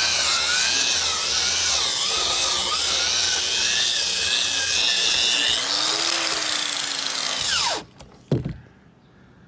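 Angle grinder with a twisted-knot wire cup brush scrubbing old paint off weathered wooden deck boards: a steady high motor whine over harsh wire scratching. Near the end it is switched off and whines down, followed by a single knock.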